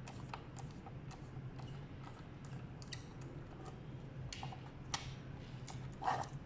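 Small plastic clicks and scrapes of a garage door keypad's cover being handled and opened by hand. The clicks are scattered and light, with a few sharper ones in the second half.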